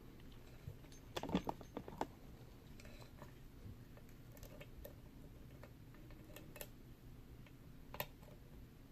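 Faint, scattered metallic clicks and ticks of a lock pick working in the keyway of a vintage Yale & Towne safe deposit box lock. There is a small cluster of clicks about a second in and a sharper single click near the end.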